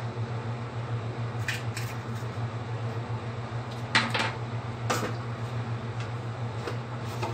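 A spatula clacking against a steel wok a few times, the loudest knock about four seconds in, over a steady low hum.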